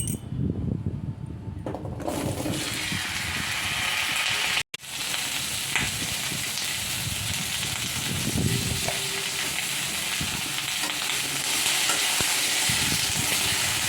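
Vegetables frying in hot oil in a pan: a steady sizzle sets in about two seconds in and carries on, with stirring. It breaks off for an instant near the middle.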